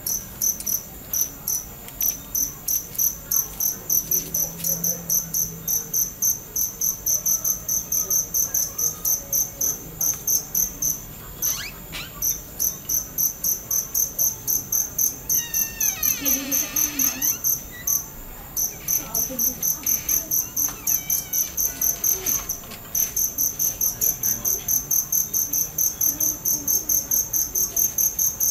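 Cricket chirping steadily, about three high-pitched chirps a second, with a few short pauses.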